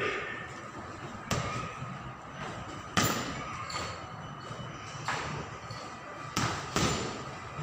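Boxing gloves punching a hanging heavy bag: about six dull smacks at irregular intervals, the last two in quick succession like a jab-straight pair.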